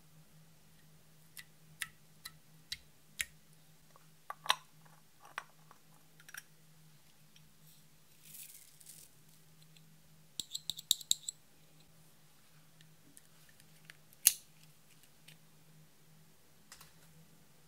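Makeup handled over clear trays: scattered sharp taps and clicks, a short soft hiss of glitter being sprinkled about eight seconds in, a quick run of ticks a couple of seconds later, and one loud click about fourteen seconds in.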